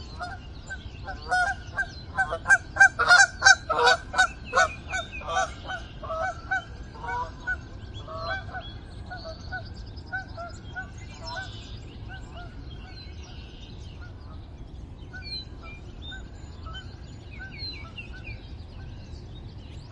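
Geese honking: a quick, loud run of honks in the first several seconds, then fewer and fainter honks for the rest.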